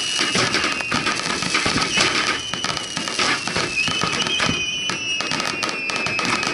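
Fireworks fired at close range from the launch barge: a dense crackle of shots and bursts, with long whistling tones that slowly fall in pitch, a fresh whistle starting about four seconds in.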